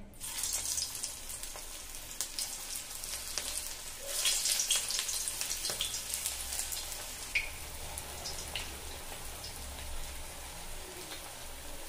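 Vegetable manchurian balls deep-frying in hot oil in a kadhai, a steady sizzle with crackles as they are dropped in one by one. The sizzle swells just after the start and again about four seconds in as more balls go into the oil.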